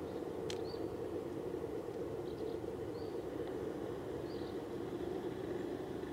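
Steady low background rumble with short, faint, high bird chirps about once a second, and a single sharp click about half a second in.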